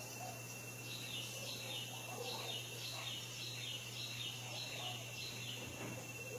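An animal's call: a quick run of short, high, falling chirps, about three a second, that stops a little before the end, over a faint steady high whine and a low hum.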